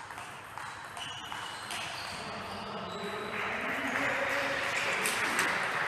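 Table tennis rally: the ball clicking off bats and bouncing on the table at an irregular pace, in a large hall with background murmur that swells about three seconds in.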